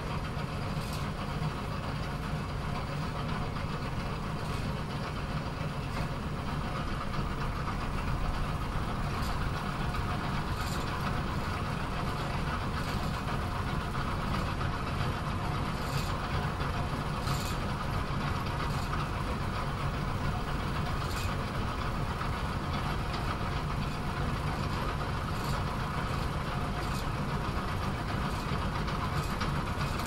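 Bowling alley pinsetter machinery running with a steady low mechanical drone, broken every few seconds by sharp clacks.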